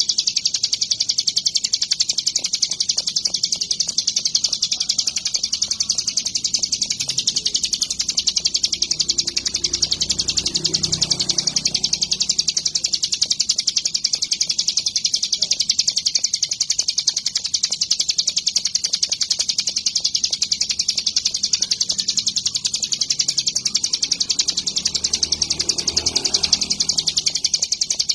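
Ciblek gunung (a prinia) singing nonstop: a rapid, high-pitched stream of chirps repeated without pause, with a faint low rumble twice in the background.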